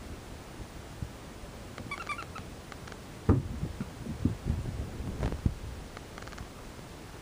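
Australian shepherd puppy at play with a toy on carpet: a few short, high squeaks about two seconds in, then a run of soft thumps and bumps from about three to five and a half seconds in, the first thump the loudest.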